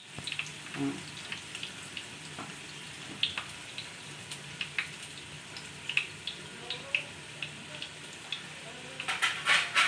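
Chicken pieces cooking in an aluminium pot on a gas stove, sizzling with scattered sharp pops and crackles. There is a louder rush of noise about nine seconds in.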